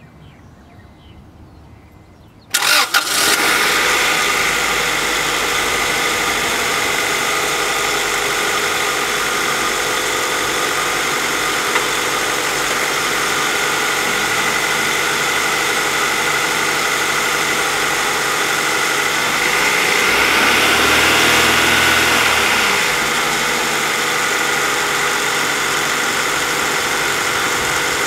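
1999 Acura Integra's B18B1 1.8-litre four-cylinder engine starting about two and a half seconds in, catching almost at once and then idling steadily. About twenty seconds in, the idle rises briefly in speed and settles back. It is running on a freshly replaced distributor cap, with no misfire to be seen or felt.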